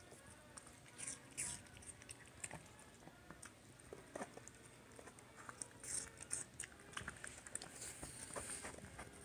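Pomeranian chewing pieces of pear from a plastic bowl: faint, irregular crunching bites, bunched in a few short spells.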